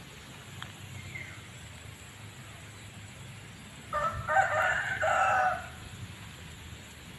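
A rooster crowing once, about four seconds in: a single cock-a-doodle-doo lasting about a second and a half.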